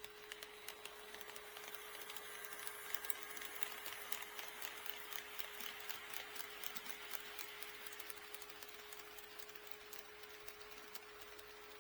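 HO scale model train rolling past on KATO Unitrack, its wheels clicking over the rail joints. The clicking gets louder and busier in the middle, then thins out toward the end. A faint steady hum runs underneath.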